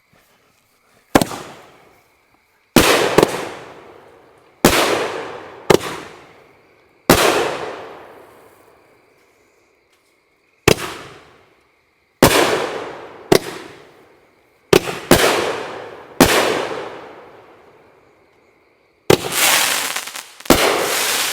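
A 500-gram consumer firework cake firing: about a dozen loud booming reports, each a sharp bang with a long fading tail, one to two seconds apart, coming faster and overlapping near the end.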